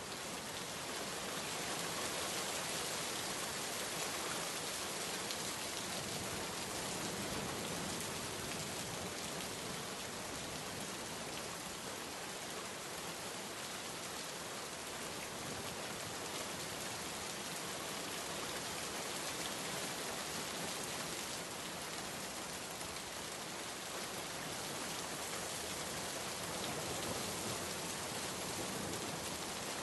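Steady rainfall: a dense, even patter of raindrops on surfaces with no breaks.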